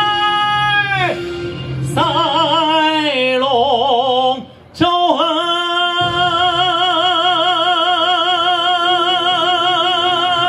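A man sings long, drawn-out notes with vibrato into a microphone over a backing track. A held note ends about a second in, then a run of wavering notes slides downward, and after a brief gap near the middle one long note with vibrato is held to near the end.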